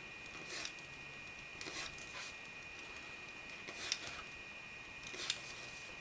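Utility knife blade slicing through a small piece of leather on a cutting mat: five short cuts as the edge is trimmed, the last two the sharpest.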